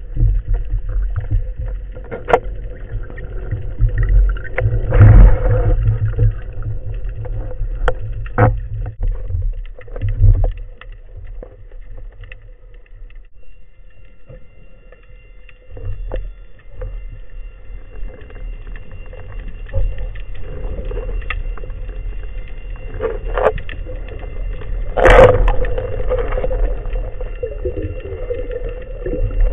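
Underwater noise heard through a speargun-mounted camera: a low rumble of water moving past as the diver swims, broken by scattered sharp knocks, the loudest about 25 seconds in.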